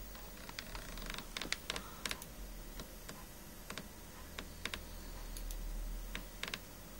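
Irregular light clicks and taps, bunched together at times, over a steady low hum.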